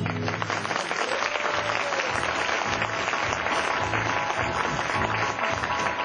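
Audience applauding as the sung song breaks off, over continuing background music with a regular low beat.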